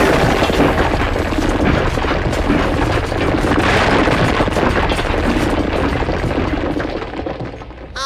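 Ground caving in: a low rumble under dense crackling and crumbling, fading out near the end.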